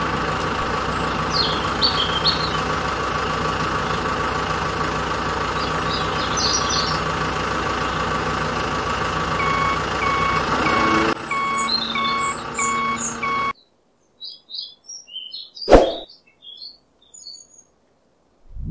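Toy truck's engine sound, a steady drone, changing near the middle to a run of regular reversing beeps that cut off abruptly. Faint bird chirps and a single sharp click follow.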